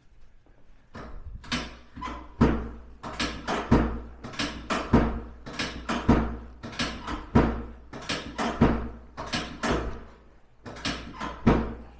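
A run of sharp thumps, about two a second, starting about a second in and stopping shortly before the end.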